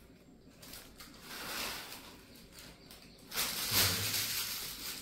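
Plastic Maggi noodle packet crinkling and rustling as it is handled, in two swells, the second louder near the end.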